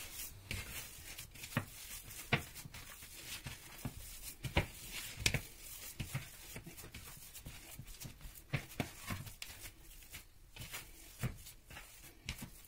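Hands kneading and squeezing raw minced meat mixed with egg and grated cheese in a ceramic bowl: irregular wet squishes and short soft clicks.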